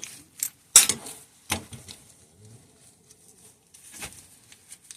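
Scattered sharp clicks and light metal taps as a threaded Hope piston tool is fitted and turned in a hydraulic brake caliper, the loudest knock just under a second in.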